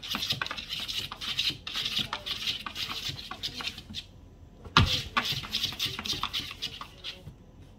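A cat's paws scrabbling and scratching fast against the side of a plastic storage tub. The scratching pauses briefly a little before the middle, then a single loud thump on the tub comes about five seconds in, followed by more scratching that fades out near the end.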